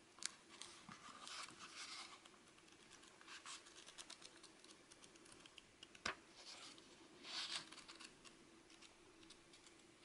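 Pages of a small lined paper notebook being flipped and riffled by hand: soft papery rustles and flicks, with a sharper snap just after the start and another about six seconds in, and a longer rustle near the end.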